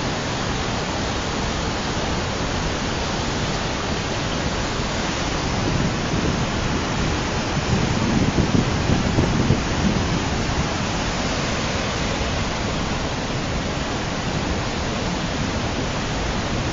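Steady rushing noise of a hot lahar, a steaming volcanic mudflow pouring down its channel, swelling a little louder and deeper for a few seconds around the middle.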